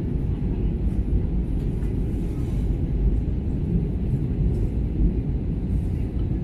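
Steady low rumble of engine and airflow noise inside the cabin of an Airbus A320 airliner during its approach to landing.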